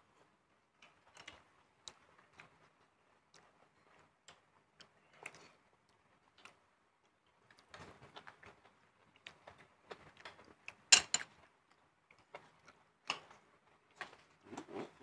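Scattered light clicks and taps of spoons against plates and bowls during a shared meal, irregular and faint, with one louder clink past the middle.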